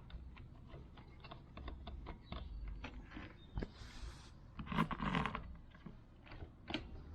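Workshop handling sounds: a run of small clicks and taps of metal parts and tools, with a louder scrape about two-thirds of the way through.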